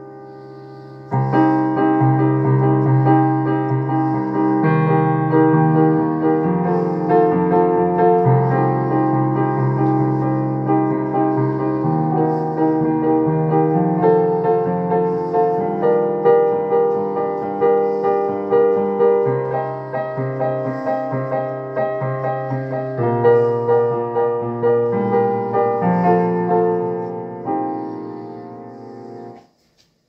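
Digital piano played in an improvised passage: chords that change every second or two over held low bass notes. The playing stops near the end and the last chord dies away.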